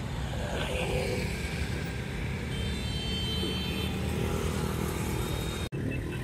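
City street traffic: a steady rumble of motorbikes and cars going by. It drops out for an instant near the end.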